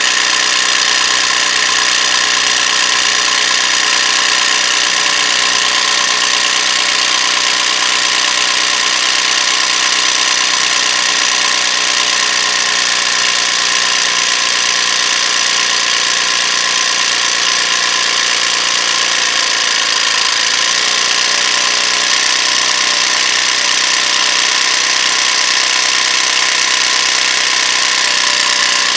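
Portable 12 V mini tyre-inflator compressor running steadily under load, pumping against a little over 2 bar as its pressure gauge creeps slowly upward.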